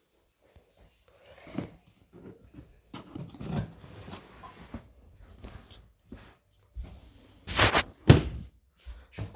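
Irregular handling noises: rustles and light knocks, with two louder thuds about two thirds of the way in.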